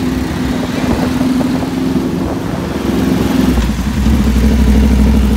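Aprilia RSV4 sport bike's V4 engine running steadily at low speed, getting a little louder near the end.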